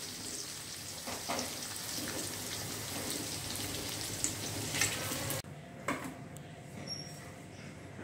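Masala-coated cauliflower florets deep-frying in hot oil in a steel kadai: a steady sizzle with a few clinks of the metal slotted spoon. The sizzle cuts off suddenly about five seconds in, leaving quieter room sound with a single knock.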